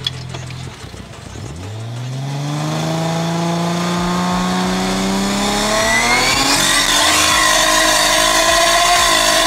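Turbocharged RB25DET straight-six of a Nissan Stagea, heard from inside the cabin, revving under load. Its pitch rises slowly for a few seconds, climbs sharply about six seconds in, then holds high and loud as the car accelerates hard.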